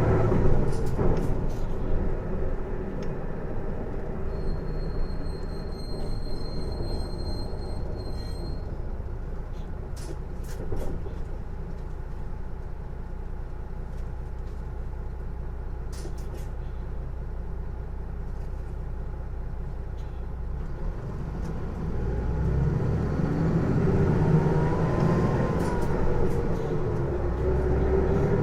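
Isuzu PJ-LV234L1 city bus slowing down, then idling with a low hum while a high beep sounds for a few seconds and a few clicks follow. Near the end it pulls away with a whine that rises in pitch, dips once and rises again. This loud, unusual whine is the noise the uploader suspects comes from the drivetrain rather than the engine.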